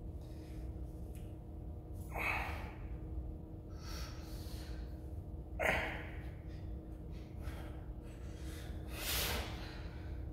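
A man breathing hard under strain while curling heavy dumbbells: three forceful breaths about three and a half seconds apart, one with each rep, the middle one loudest, over a low steady hum.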